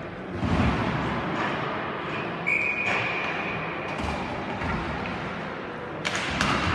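Indoor ice hockey rink ambience during a stoppage in play: a steady din of the arena with a few thuds, a short, high whistle tone about two and a half seconds in that rings out in the hall, and sharp knocks near the end.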